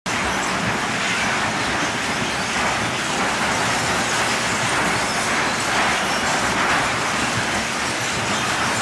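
Industrial shredder running as a roll of shiny foil sheet is drawn into its rotating cutter discs and torn up: a steady, dense mechanical noise that holds at one level throughout.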